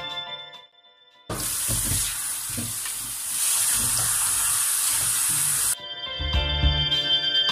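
Tap water running hard into a stainless-steel sink and splashing over hands and a pan under the stream, starting suddenly about a second in and cutting off near the end. Background music fades out at the start and comes back after the water stops.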